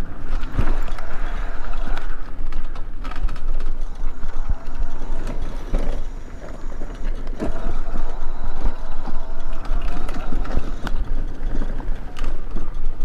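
Electric mobility scooter running along a sandy dirt trail: a steady motor hum and the rumble of the tyres, with scattered clicks and rattles from the scooter.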